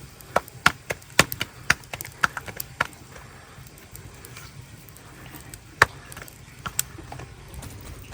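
A run of irregular sharp knocks, about ten in quick succession over the first three seconds, then a single loud knock near six seconds and two or three weaker ones soon after.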